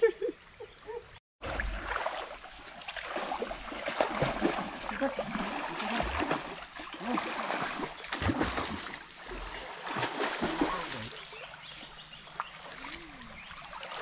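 Water splashing as a person swims and wades through a shallow stream, over the stream's running water. The splashing is irregular and eases after about eleven seconds.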